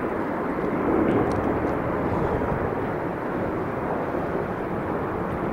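Airbus A330-200 twin-jet airliner coming in to land: a steady jet engine rumble, swelling slightly about a second in.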